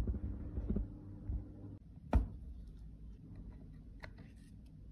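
Handling noise from a plastic makeup compact: a low steady hum stops just under two seconds in, then a single sharp click just after two seconds, then a few faint ticks near the end as tweezers touch the pressed powder.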